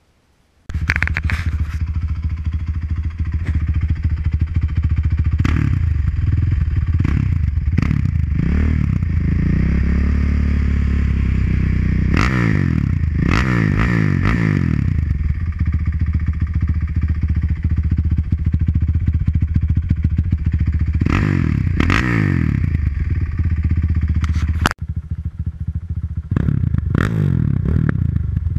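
Honda TRX450R quad's single-cylinder four-stroke engine idling and being revved again and again, with quick throttle blips and one longer rev that rises and falls. It comes in suddenly after a moment of silence at the start.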